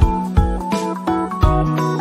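Background instrumental music with a steady beat and a keyboard melody.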